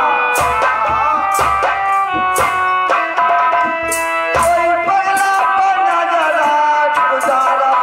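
Folk-theatre stage music: a hand drum of the tabla or dholak kind struck repeatedly under held, sustained melodic tones, with a voice singing along.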